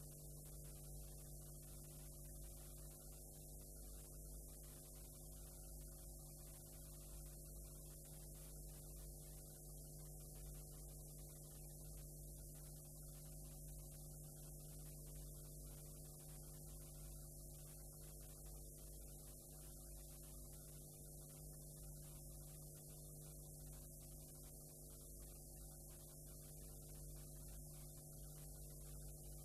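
Near silence: a steady low electrical hum with faint hiss, the noise floor of blank videotape playback.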